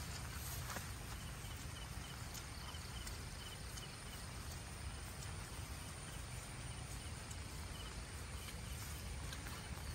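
Rural outdoor ambience over wet rice paddies: a steady hiss with a low rumble, scattered faint clicks, and a faint high chirp repeated in pairs.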